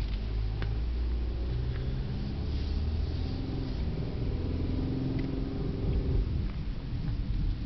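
A 2010 Chevy Equinox's engine and road rumble as the car pulls away, heard from inside the cabin. The engine note climbs for several seconds and drops back about six seconds in.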